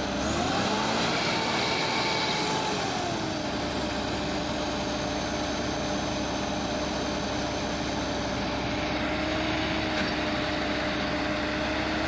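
Tractor engine sound effect: it revs up about half a second in, holds, drops back near three seconds in and then runs steadily, rising again at the very end.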